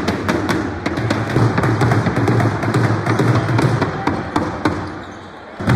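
Music with a steady, thumping beat, about two beats a second, with short sharp knocks and taps over it. It eases off near the end.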